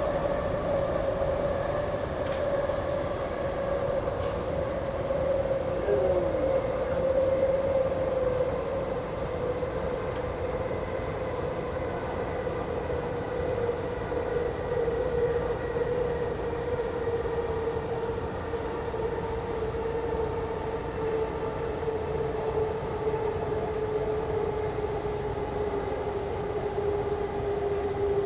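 Heard from inside the car, a Kaohsiung MRT Red Line metro train runs over a steady wheel-and-track rumble. Its electric traction drive whines on one tone that slowly drops in pitch, a sign that the train is easing its speed.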